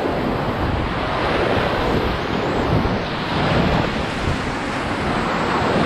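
Whitewater rapids rushing loudly and steadily around a raft, with wind buffeting the microphone.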